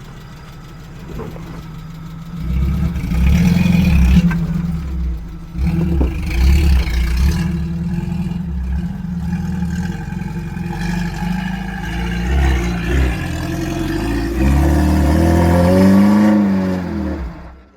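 Off-road 4x4's engine working hard under load on a rutted climb. It revs up and down repeatedly as the throttle is worked, swells again near the end, then cuts off suddenly.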